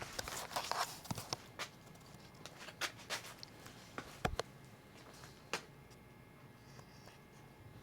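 A brief rustle, then scattered sharp clicks and knocks, the loudest a dull thump about four seconds in.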